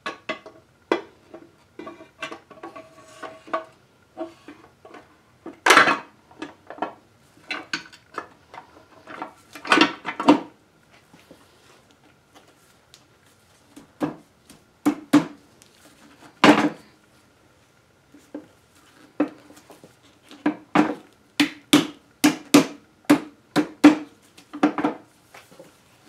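The upper half of a Honda K-series transmission's aluminium case being fitted over the gear shafts and tapped down onto the lower half: scattered metallic knocks and clinks, then a run of quick, even taps, about two or three a second, near the end.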